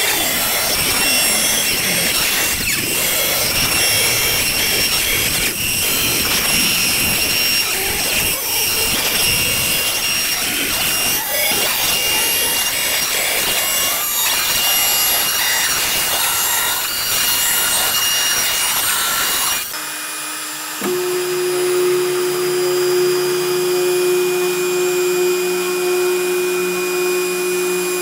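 Makita compact router spindle on a CNC machine cutting pine: a harsh, rasping cutting noise under a steady high whine. About 20 seconds in the sound changes abruptly to a smoother, steady hum with a low drone.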